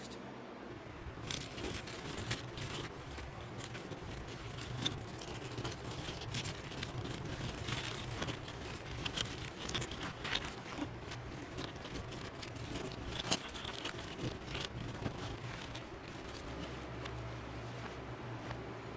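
An assembled cardboard jigsaw puzzle being broken up by hand and its pieces slid across a tabletop: a continuous run of small clicks and scraping.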